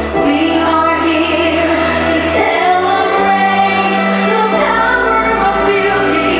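Music with a woman singing, the melody in long held notes over a sustained bass line.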